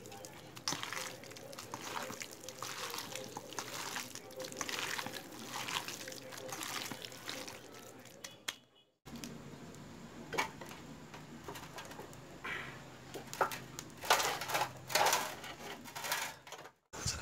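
Hands squelching and kneading spice-marinated pork pieces in a steel bowl, a wet squish about once or twice a second. After a brief dropout partway, more scattered wet squelches and sharp clicks.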